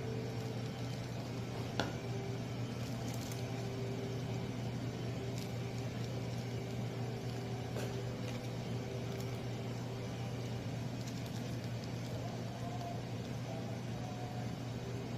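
Steady low hum of the kitchen's room background, with a few faint clicks and light handling sounds.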